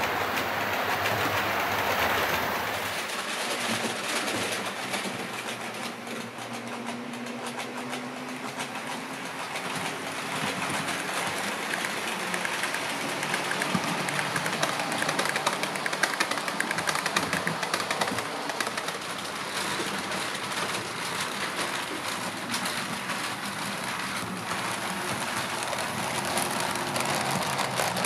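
Model train running on the layout track: a steady rolling rumble of small wheels on rail with a faint motor hum, the sound changing about three seconds in.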